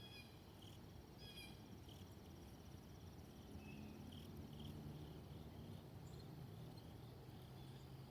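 Faint insect chirping, crickets by the sound of it: short chirps repeating every half second or so, with a fast high trill for the first few seconds, over a low steady hum.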